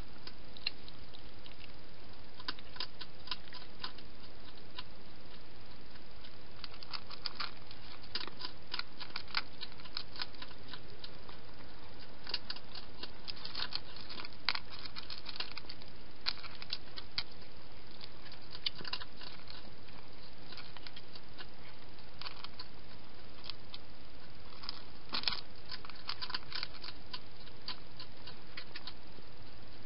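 Domestic cat eating from a bowl: rapid, irregular crunching clicks in clusters as it chews dry food, over a steady hiss.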